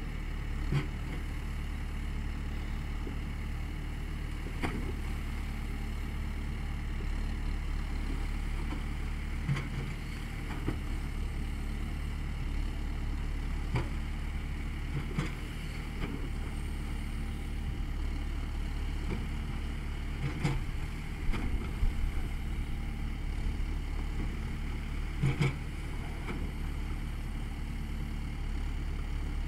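Backhoe loader's diesel engine running steadily while its rear arm works the bucket in the water. Now and then a sharp knock or clank sounds, about eight times, loudest about three quarters of the way in.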